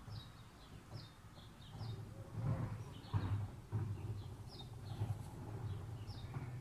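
Small birds chirping, short high calls repeated every half second or so, over a low rumble that grows louder about two seconds in.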